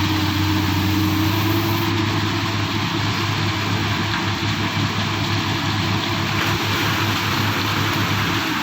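Excavator's diesel engine running steadily, with a deep hum and a higher tone that fades out about two seconds in.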